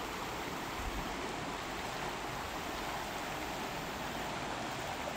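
Steady rushing of flowing water, even throughout with no distinct events.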